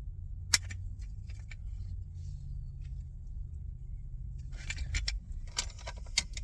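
Funko Soda collectible can being handled and pried at while trying to open it: a sharp click about half a second in, a few light clicks, then a run of rattling and clicking near the end, over a steady low hum.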